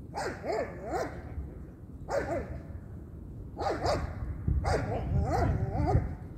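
An animal calling in four bursts of short, wavering pitched cries, the last burst the longest.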